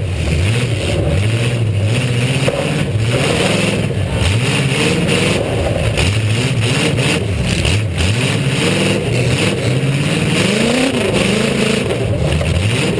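A demolition-derby car's V8 engine revving up and down again and again, heard from on board the car. Several sharp knocks and bangs cut in.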